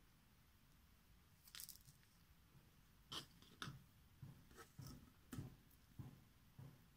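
Faint handling sounds of a miniature clay cupcake being lifted out of its foil cupcake liner and set down on a table, then small clay pieces picked up. They come as a string of about ten short taps and light scrapes, starting about a second and a half in.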